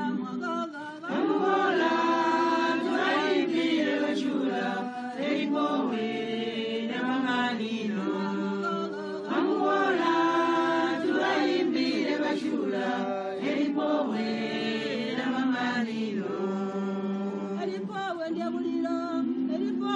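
A chorus of voices chanting a traditional Zambian funeral song, sustained throughout.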